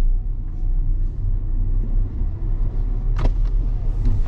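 Mazda MX-5 (ND Roadster) engine and road noise heard inside the cabin as the car rolls slowly: a steady low rumble, with one sharp click a little after three seconds in.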